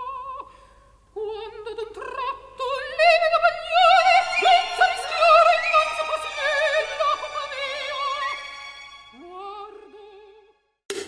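Operatic singing: a high voice with wide vibrato holding long notes, swelling to its loudest phrase a few seconds in, then fading to a lower last note that slides up and stops suddenly near the end.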